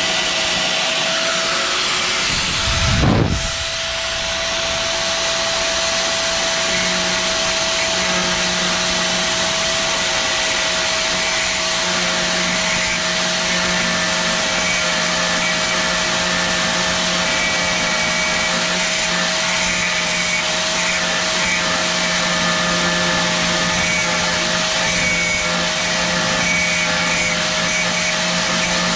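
Compact Black+Decker cutting tool with a thin disc, its motor whining steadily while it trims the aluminium edges of the boat's deck framing. There is a brief falling sweep and dip about three seconds in.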